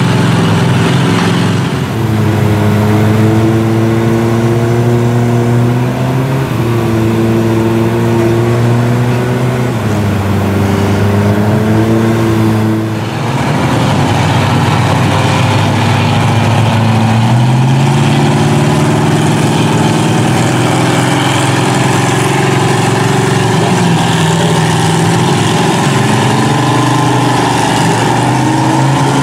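Truck engines revving hard while a big-tired mud truck tows a stuck pickup out of a mud pit on a strap. The engine pitch holds, steps up and down several times, drops briefly about halfway through, then climbs again.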